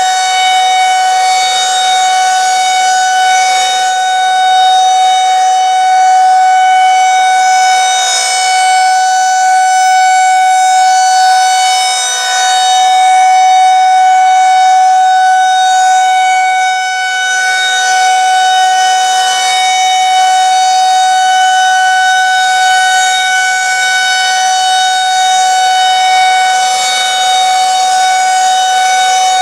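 Federal Signal 2001-130 rotating electromechanical outdoor warning siren sounding a steady alert tone during its monthly test. The pitch holds steady while the loudness swells and dips gently as the rotating head sweeps past.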